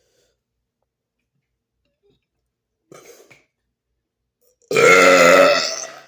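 A man's long, loud burp starting about two-thirds of the way in, lasting over a second and trailing off. Before it comes a faint short sound.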